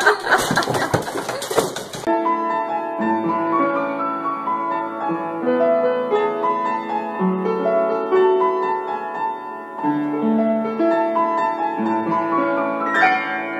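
Upright piano played slowly, single notes and chords held and overlapping. It is preceded by about two seconds of noisy commotion, and near the end a sudden clash of noise breaks in over the notes.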